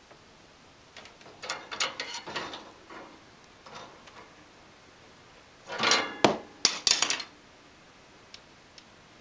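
Wire pet cage rattling and clinking as a ragdoll cat paws at the bars and rubs its head against them. There is a run of rattles about a second in and a louder burst about six seconds in, then two faint ticks.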